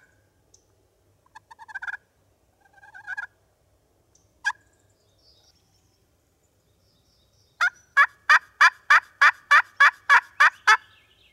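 Turkey yelping: a few scattered single notes and short quick bursts, then a run of about eleven evenly spaced yelps at roughly three or four a second.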